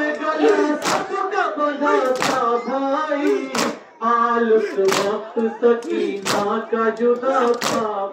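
A male voice singing a Muharram noha, the mourners' lament, with a crowd of mourners striking their chests in unison (matam) in a steady beat, about one strike every second and a half.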